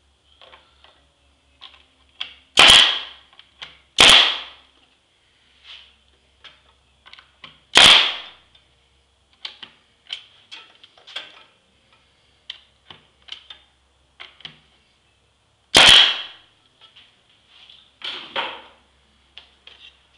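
Pneumatic brad nailer firing brads into pine crate slats: four sharp shots, two close together a few seconds in, one near the eighth second and one near the sixteenth, each with a short fading hiss. Lighter clicks and knocks come in between.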